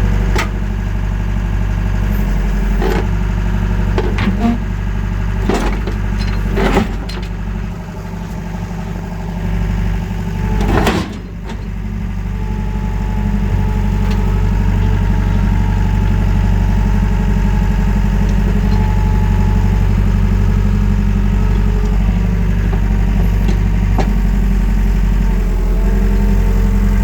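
Wacker Neuson 901S skid steer's engine running steadily, with several sharp clunks and knocks in the first dozen seconds and a brief drop in the engine sound about eight to eleven seconds in.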